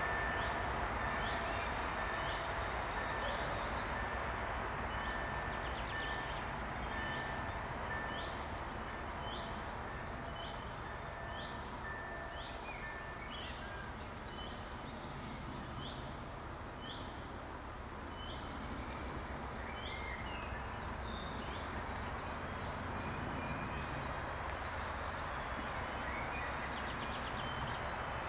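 Low steady rumble of the PKP Energetyka PS-00.M rail inspection vehicle running slowly along the track towards the listener. A bird chirps over it, a short high call about once a second through most of it, and a thin steady high tone comes and goes in the first half.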